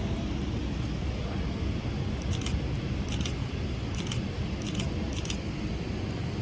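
Camera shutter clicking five times in quick succession, a short sharp click every two-thirds of a second or so, over a steady low rumble.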